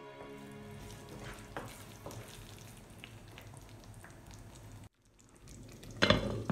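Okra curry simmering and sizzling in a pan, with faint light knocks of a wooden spoon stirring it. About six seconds in, a glass pan lid is set down on the pan with a loud clatter.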